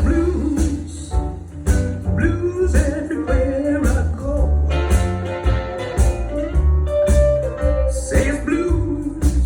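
A song with a singing voice over guitar, bass and drums, played back through hi-fi bookshelf or floorstanding loudspeakers.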